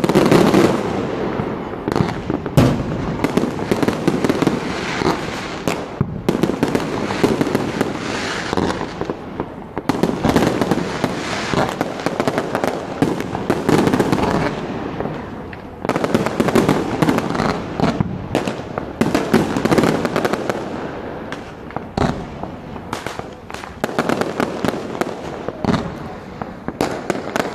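A fireworks display: a continuous barrage of bangs and crackling, with sharp reports scattered densely throughout.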